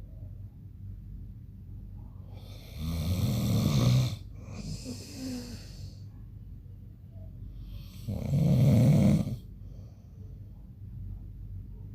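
A man snoring in his sleep: two loud snores about five seconds apart, the first followed by a softer breath.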